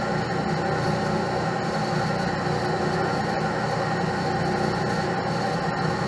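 Metal lathe running steadily, machining a stainless steel swivel air fitting held in its chuck: an even mechanical hum with several held tones.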